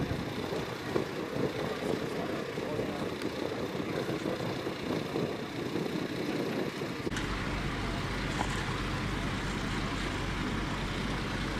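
Vehicle engine running, a rough, uneven rumble. About seven seconds in the sound changes abruptly to a steady low engine hum.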